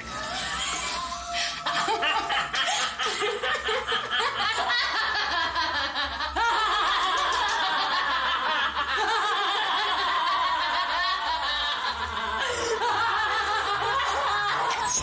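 Two women laughing heartily together over background music.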